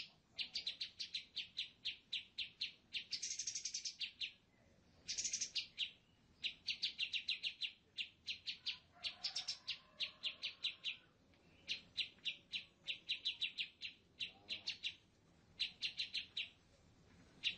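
Birds chirping in rapid series of short, high chirps, about eight a second, in bouts of one to two seconds with short breaks between, and a couple of buzzier trills among them.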